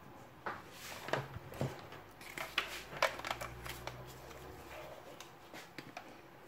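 Faint scattered clicks, taps and rustling as an electric hand mixer and its cord are brought out and handled over the mixing bowl.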